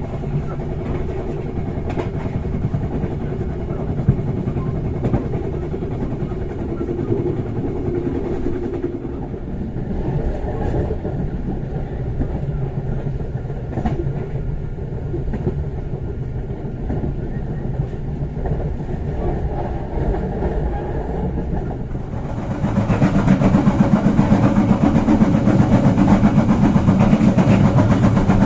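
Bengawan passenger train running on the rails, heard from inside the carriage: a steady rumble of wheels and track that grows clearly louder about three-quarters of the way through.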